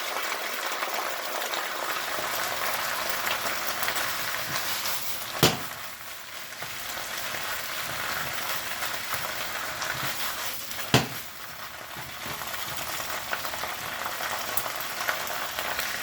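Chinese broccoli sizzling in a hot pan over high heat, just after a splash of water, a steady frying hiss. Two sharp knocks stand out, about five and a half seconds in and again about five seconds later.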